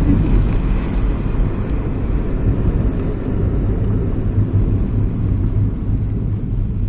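Steady low rumble of a vehicle on the move, heard from inside it.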